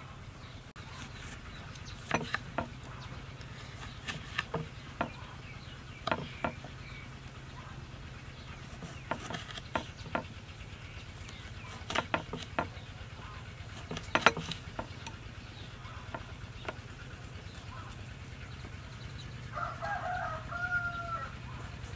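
Chickens clucking in the background, with one longer pitched call about 20 seconds in, over a steady low hum. Scattered sharp knocks and clicks come every second or two and are the loudest sounds.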